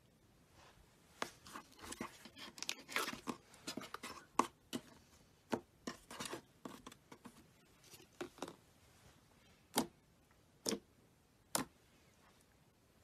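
Slime being pressed and pulled by hand, giving quick irregular sticky clicks and pops, thick at first and then thinning to a few single pops near the end.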